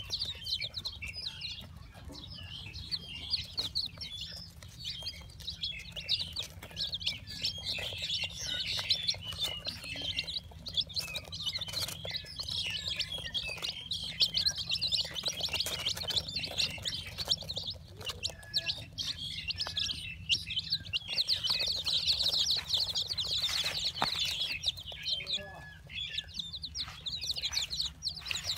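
A brood of young chicken chicks peeping continuously, many high-pitched cheeps overlapping.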